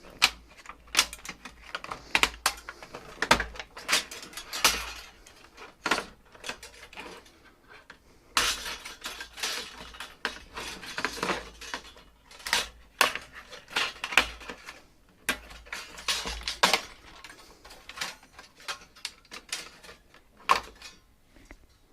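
Irregular clicks, knocks and clatter of a docking station's plastic casing and aluminum parts being handled and pulled apart by hand, with a longer noisy stretch about eight to eleven seconds in.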